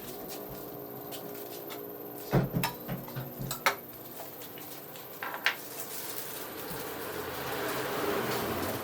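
A few sharp clinks and knocks of a utensil against a non-stick frying pan, in two brief clusters, then a soft hiss that grows louder toward the end.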